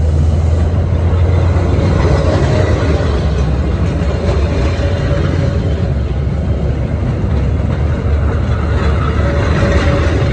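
Train carriages rolling directly over the track at rail level: a loud, steady, deep rumble of wheels on rails and the undercarriage passing overhead.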